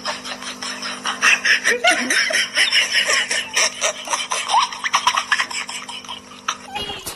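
Otter giving rapid, high-pitched squeaking chirps in quick succession, which stop suddenly near the end.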